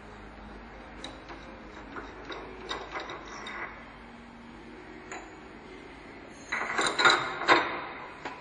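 Universal milling machine mechanism clicking and clanking over a steady machine hum, with scattered light clicks and then a louder burst of metallic clatter near the end.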